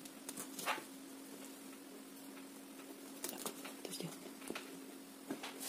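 Handling noise from a felt quiet book: soft rustles and a few light taps as the felt pop-up castle and bushes are folded down onto the page, over a faint steady hum.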